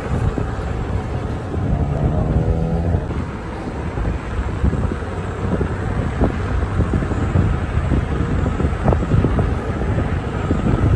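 Wind rushing over the microphone with road and traffic noise while riding an electric unicycle along a city street, with a short falling hum about two seconds in.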